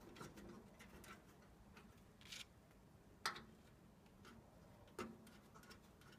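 Faint clicks and taps of a metal drive-mounting plate being fitted back onto a computer case, with one sharp click about three seconds in and another about five seconds in.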